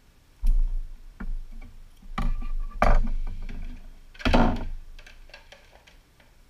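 Hook-and-loop Velcro strips being handled and pulled apart in a few short crackling rips, with knocks from handling the armor piece, the loudest about three seconds in and another a second later.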